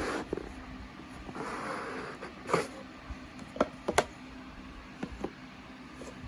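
A cardboard box and its paper wrapping being handled and opened: a soft rustle about a second and a half in, then several sharp clicks and taps, the loudest about four seconds in.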